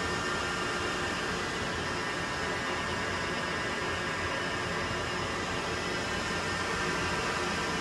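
Boley 5LZ toolroom lathe running steadily: a constant mechanical hiss with several fine high tones held level throughout.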